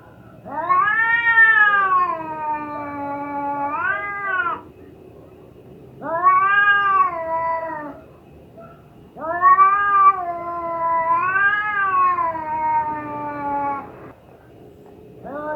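Cat in heat caterwauling: three long, drawn-out yowls that rise and fall in pitch, separated by short pauses. A fourth yowl begins right at the end.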